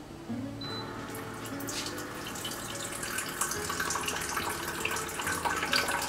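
Filtered water running from a countertop dispenser into a glass electric kettle, starting about a third of a second in and growing steadily louder as the kettle fills.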